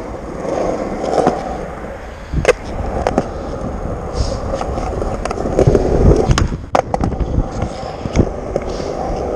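Skateboard wheels rolling with a steady rumble, with a few sharp knocks from the board, one about two and a half seconds in and a couple more near the end.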